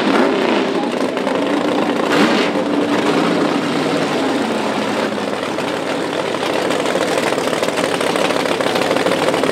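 Drag-racing engine running loud. Its pitch dips and rises a couple of times in the first two or three seconds, then it holds a steady, rough-sounding speed.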